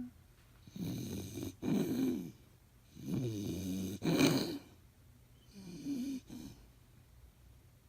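Dog making five harsh, raspy noises in its throat and airway, two pairs and then a single one, the fourth the loudest. The uploader suspects kennel cough.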